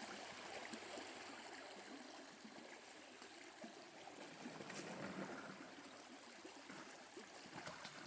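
Faint, steady running water, like a shallow creek flowing.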